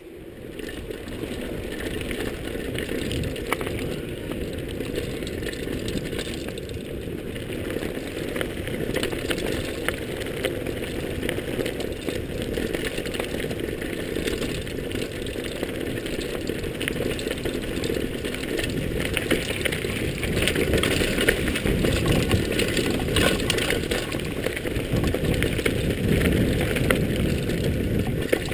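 Mountain bike rolling fast down a gravel trail: wind rumbling on the microphone, tyres crunching over gravel and the bike rattling over bumps, getting louder about two-thirds of the way through.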